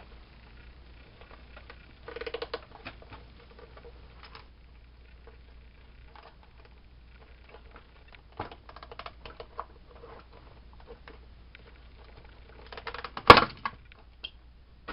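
Plastic digital clock radio case being handled and turned over: scattered clicks and light rattles, with one sharp knock about thirteen seconds in, the loudest sound.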